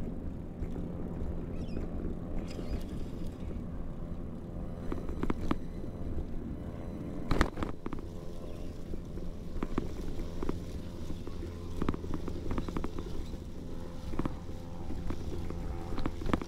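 Low, steady road rumble carried through the suspension of a vehicle-mounted stereo microphone as it rolls over asphalt and then a dirt path, with scattered sharp taps from the microphone knocking against its housing, the loudest about seven seconds in.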